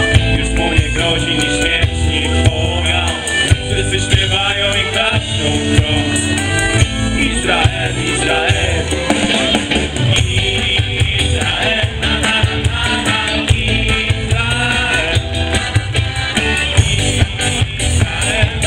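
Loud live band music with a sung vocal and a pulsing bass beat, played over a PA system and recorded from within the concert crowd.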